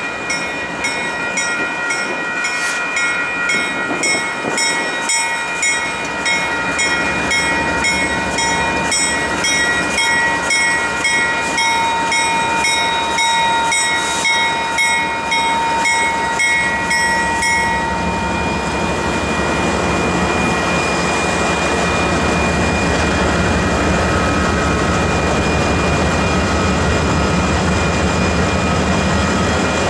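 Union Pacific diesel freight locomotives pulling out, with engine rumble growing louder in the second half as the lead units pass close. A grade-crossing bell rings in quick, even strokes and stops a little past halfway.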